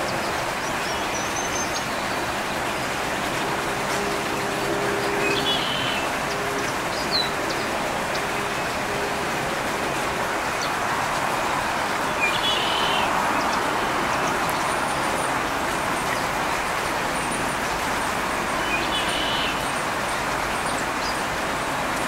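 Steady hiss of distant road traffic, with short bird chirps breaking in every few seconds.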